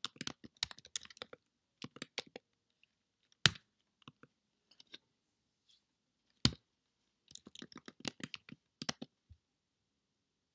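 Computer keyboard typing in short bursts of quick key clicks. Two single louder clicks stand out, one about three and a half seconds in and one about six and a half seconds in.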